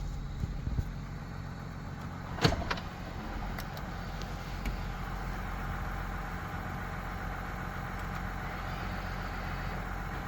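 2023 GMC Sierra 3.0L diesel running with a steady low drone. About two and a half seconds in comes a sharp metallic tick, then a fainter one, with a few lighter ticks later. It is an intermittent tick from under the truck near the driver's seat, like a tin piece of metal getting whacked, and its cause is unknown.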